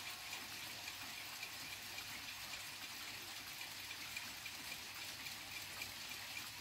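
Steady hiss with the faint ticking of a 1950s mantel clock's movement. A faint ringing tone dies away in the first half-second, and no chime or strike sounds.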